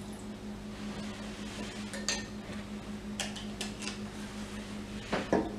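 A few light clicks and clinks as a small glass bottle of lemon extract is capped and handled by a glass mixing bowl, over a steady low hum.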